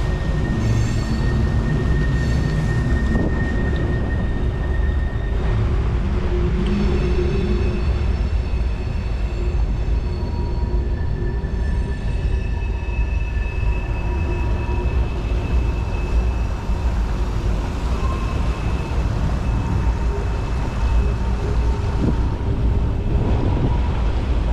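Mountain trout stream rushing, a steady loud rumble and hiss of moving water.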